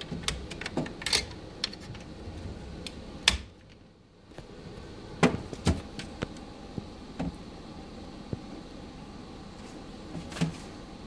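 Irregular clicks and light knocks as a rabbit moves around inside a wooden hutch, its feet and body bumping the wooden frame, metal tray and wire mesh.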